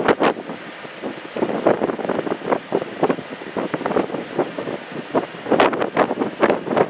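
Strong, gusty wind buffeting the microphone in rapid, uneven blasts, with a brief lull about a second in.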